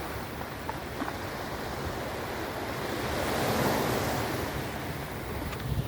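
Sea surf washing against the shore, with wind buffeting the microphone. The surf swells a little past the middle, then eases.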